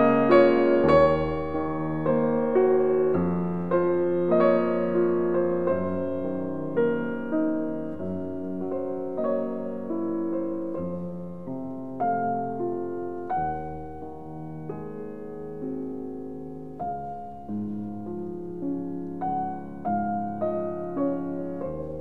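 Background music: a solo piano playing a slow melody, each note struck and left to fade.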